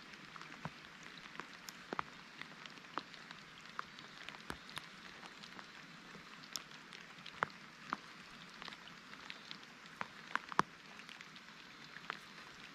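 Faint, irregular pattering and ticking of water drops over a soft hiss, with a few louder ticks scattered through.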